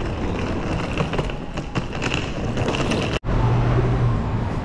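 Hard suitcase wheels rolling over a tiled floor, with a steady rumble and quick clicks as they cross the tile joints and tactile paving. About three seconds in it cuts off abruptly and gives way to a steady low hum.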